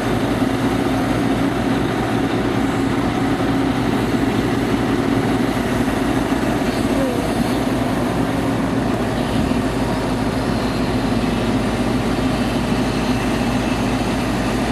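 Heavy diesel engine running at a steady speed, with no revving or change in pitch.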